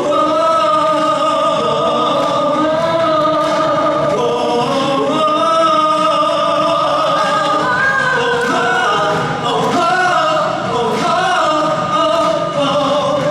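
A vocal group sings held notes in close harmony over a pop backing track, the voices sliding from note to note with no clear words.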